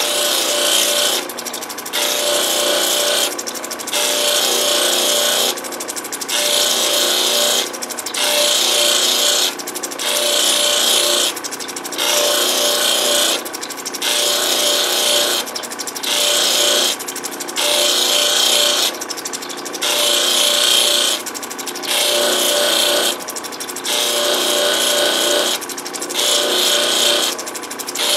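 Lapidary grinding machine running steadily while an opal is pressed against its last wheel in repeated passes: a hissing rub of about one to two seconds each time the stone meets the wheel, with short breaks between passes as it is lifted off, around fifteen passes in all.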